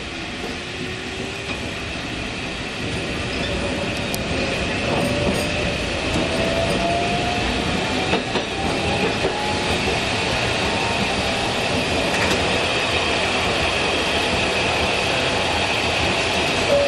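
Fukui Railway 770-series tram running on street track, heard from inside the cab as it picks up speed: a motor whine rising in pitch over the first nine seconds or so, under wheel-and-rail running noise that grows louder. A few knocks from the rails come about eight and twelve seconds in.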